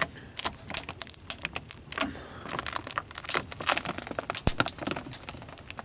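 Plastic door moisture barrier crinkling and crackling as it is peeled away from sticky butyl sealant, a steady run of irregular crackles.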